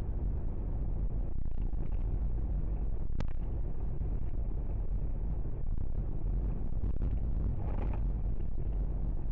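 Steady low rumble of a car driving, engine and tyre noise heard inside the cabin, with a brief sharp click about three seconds in.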